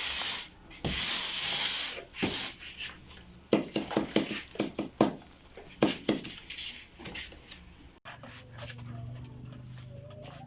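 A hand finishing tool scraping across fresh cement in two long strokes, then scattered knocks and clicks. About eight seconds in, the sound cuts to a low steady hum.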